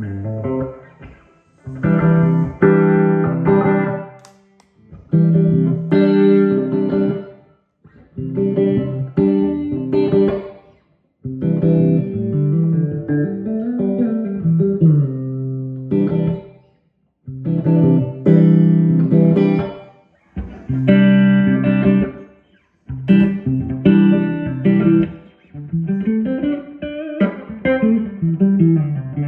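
Electric guitar played through a boutique tube guitar amplifier, in phrases of a few seconds separated by short pauses, mixing chords and single-note lines, with string bends and slides near the end.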